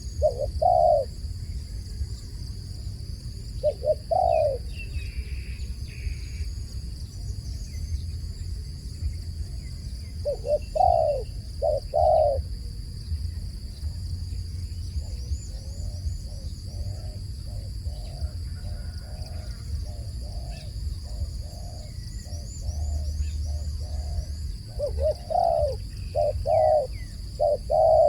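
Dove cooing in short groups of low notes, with a faster run of softer coos in the middle and a louder series near the end. Faint chirps of small birds and a steady high-pitched whine run underneath.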